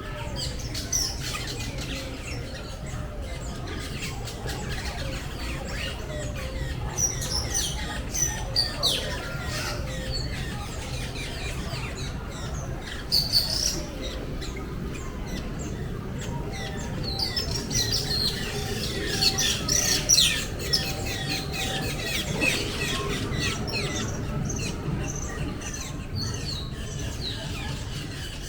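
Many birds in a tropical walk-through aviary chirping and squawking, a busy overlapping chorus of short calls with louder bursts now and then, over a steady low background hum.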